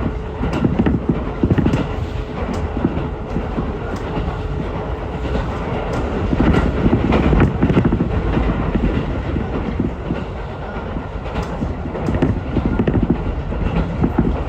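Ichibata Electric Railway train running along the track, heard from inside the carriage: a steady rumble of wheels on rail with irregular clacks.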